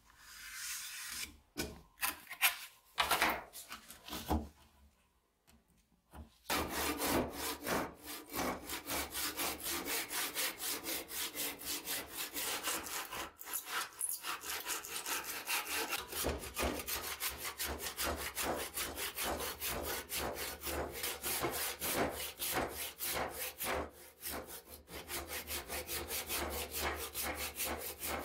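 A few scattered knocks and scrapes, then a hand saw cutting through a block of wood in steady, rapid back-and-forth strokes from about six seconds in, with a couple of brief pauses.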